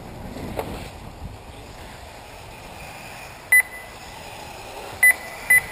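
Short, high electronic beeps from the race's lap-timing system: one about three and a half seconds in, then two half a second apart near the end, each marking a buggy crossing the timing loop. Under them a faint steady outdoor hiss.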